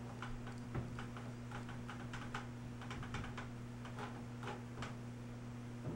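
Light, irregular clicks and taps of a makeup brush against small plastic makeup pans and containers being handled, over a steady low hum.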